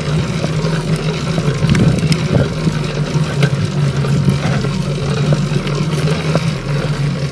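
Small two-stroke bicycle engine kit running steadily under way on a motorized bicycle, with scattered small clicks and rattles; it eases off and gets a little quieter near the end.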